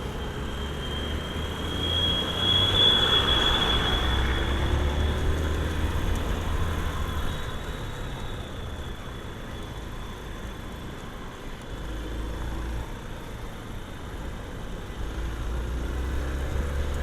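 Motorcycle on the move: a steady low engine and road rumble, with a thin high whine that swells about two to four seconds in and then fades.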